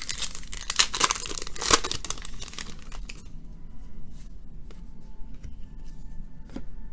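A baseball card pack wrapper being torn open and crinkled for about three seconds, then quieter small clicks and rustles as the cards are handled.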